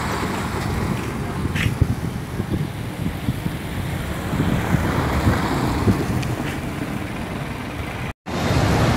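Vehicles driving past on a wet cobblestone street, with wind rumbling on the microphone. The sound drops out briefly near the end.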